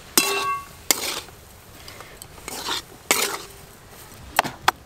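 Flat metal spatula scraping and knocking against a metal wok as a thick mashed-potato filling is stirred. There is a ringing clang just after the start, a few scrapes and knocks through the middle, and a quick run of taps near the end.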